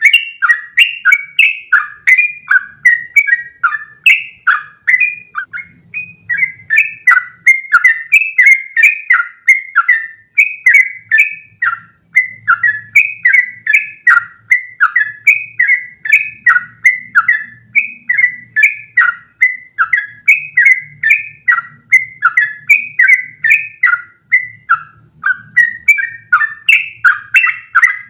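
Yellow-vented bulbul (trucukan) singing a long, unbroken run of rapid chattering notes, about three a second, each note quickly bending in pitch.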